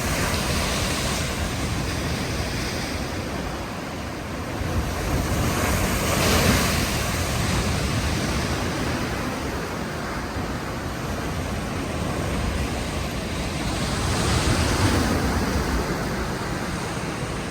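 Large Lake Michigan waves crashing against a pier, the rushing water swelling about six seconds in and again near fifteen seconds, with wind buffeting the microphone.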